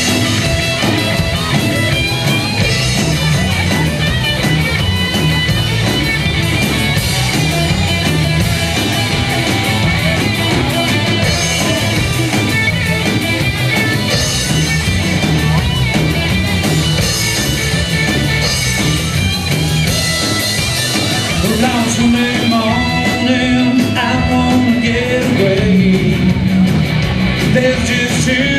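Live rock band playing a song: strummed acoustic guitar over a steady drum-kit beat, with a man's lead vocal coming in about three quarters of the way through.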